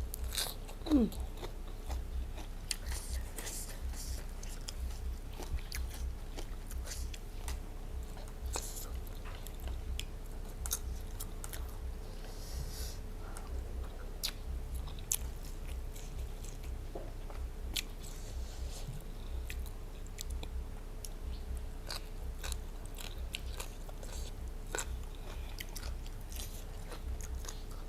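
Close-up chewing and crunching of raw vegetables, with many small crisp crunches and mouth sounds throughout. There is one brief falling tone about a second in.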